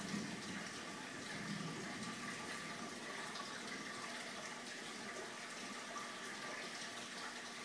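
Steady rush of water circulating in an aquarium, with a faint steady tone over it.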